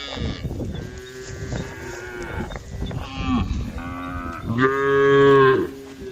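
Several cows mooing, one call after another and sometimes overlapping. The loudest is one long moo about five seconds in.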